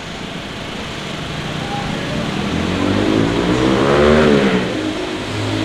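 A motor vehicle drives past, its engine note rising in pitch and loudness to a peak about four seconds in and then falling away, with another engine coming up near the end.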